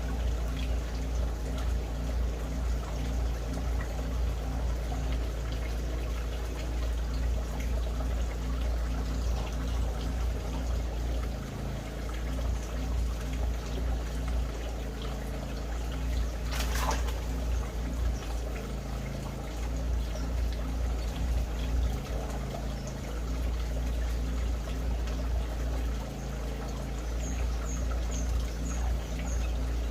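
Steady trickling, water-like noise over a low hum, with one sharp sound about halfway through and a few faint, short, high chirps from small birds near the end.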